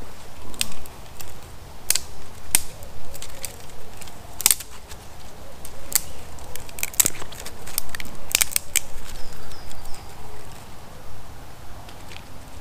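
Small kindling fire of twigs crackling, with sharp, irregular snaps and pops.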